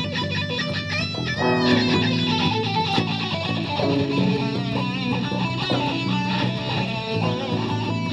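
String orchestra playing, with many held notes and a quick sliding figure about a second in.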